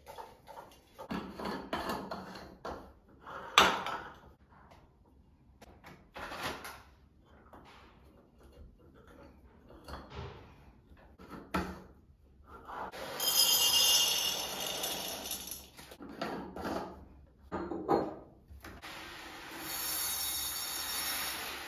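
Glass storage jars being filled by hand from plastic packets: the packets crinkle, dried red chillies and tamarind drop into the jars, and a few sharp clinks of glass break in. From about three seconds before the end, red rice pours from a bag into a ribbed glass jar as a steady hiss.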